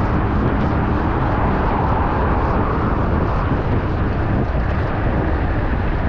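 Steady rush of wind on the microphone mixed with city traffic, heard from a moving bicycle.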